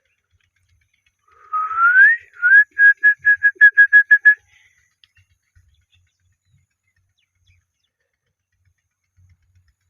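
Indian ringneck parrot whistling: one rising whistle, a second short upward slur, then a quick run of about nine short whistled notes at one steady pitch, about six a second.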